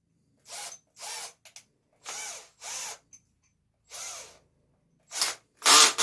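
Cordless drill-driver running in short trigger bursts, about seven of them, driving stainless Robertson screws into wood. The last bursts, near the end, are the loudest.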